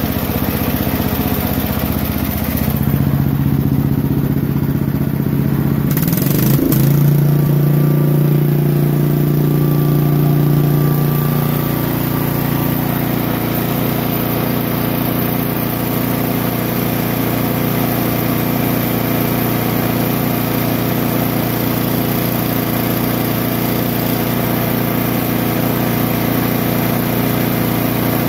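Cast-iron Briggs & Stratton engine running on AVGAS with its ignition retarded to 25° BTDC. Its speed picks up a few seconds in, from about 1,900 rpm to about 3,500 rpm, and then holds steady.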